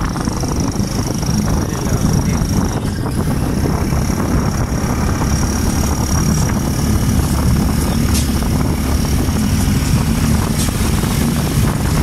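Engine of a moving road vehicle running steadily, heard on board with wind buffeting the microphone. A thin, steady high-pitched tone sits above it for much of the time.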